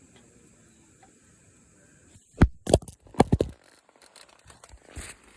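A quick run of about five loud, sharp knocks and clatters a little after halfway, then a few lighter ticks and a short rustle near the end, over a faint background.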